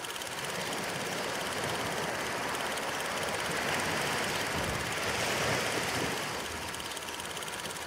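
8mm film projector running: a steady whirring clatter that starts abruptly and swells slightly in the middle.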